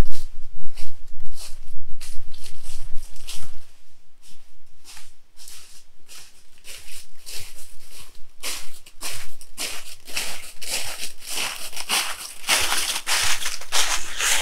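Irregular crunching and rustling of dry material, growing louder and closer together in the last several seconds, with a low rumble underneath for the first few seconds.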